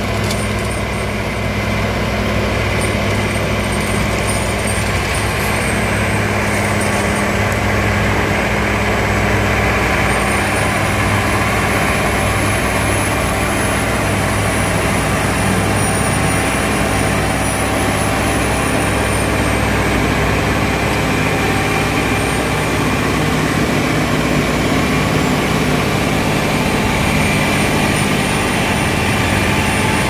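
Valtra S352 tractor's six-cylinder diesel running steadily at high revs under heavy load, powering a Valentini Demonio 2000 forestry rotary tiller that churns through soil, stalks and roots.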